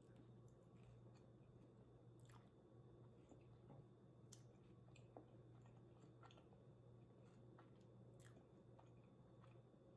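Faint close-up chewing of food, with irregular small clicks and mouth noises scattered every half second or so, over a steady low hum.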